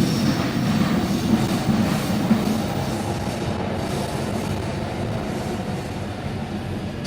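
Metro train in the station, a steady rumble with electric motor hum and a faint high whine from the wheels, slowly getting quieter.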